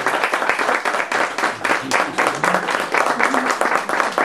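Audience applauding, many hands clapping densely and unevenly, with a few faint voices under it.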